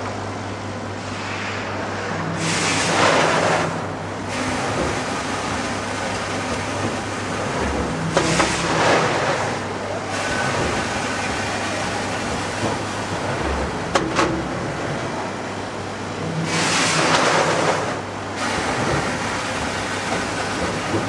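Automatic vertical form-fill-seal granule packaging machine running with a steady low hum. A rushing hiss lasting a second or so comes three times, several seconds apart, with each bagging cycle. There is a sharp click about two-thirds of the way through.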